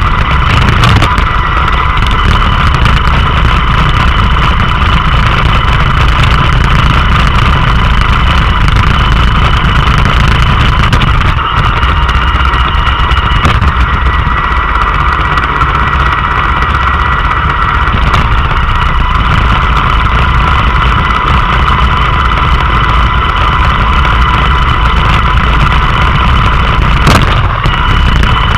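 Roomba robot vacuum running close up, a steady motor whir with a thin high whine over it. A few brief knocks break it, one about a second in and others near the middle and near the end.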